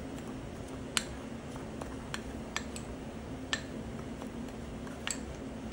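A spoon clinking against a bowl about six times at irregular intervals as dry seasonings are stirred together, over a faint steady hum.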